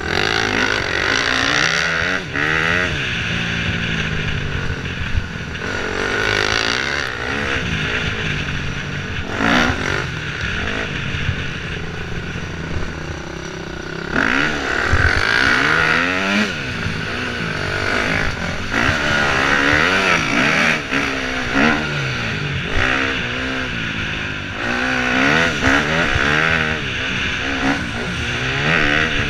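KTM 250 dirt bike engine ridden hard, revving up and dropping back over and over as it accelerates and shifts through the gears, its pitch rising and falling every second or two.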